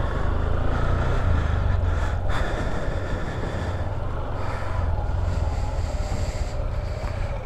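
A motor vehicle engine running steadily at low revs, a low, even sound with a fast pulse to it.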